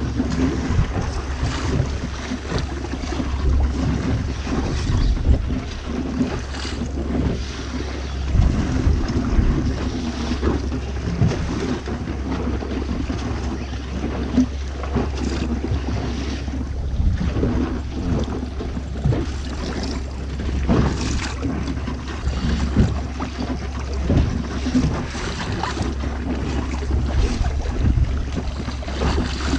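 Wind gusting on the microphone over water splashing against a boat's hull, with a steady low rumble underneath.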